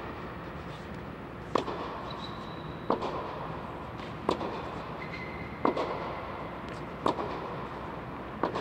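Tennis ball struck by rackets in a baseline rally: six sharp pops, about one every second and a half, each with a short echo, over a steady background noise.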